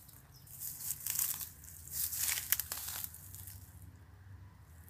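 Dry leaves and twigs rustling and crackling as someone pushes through brush, in two bouts in the first three seconds.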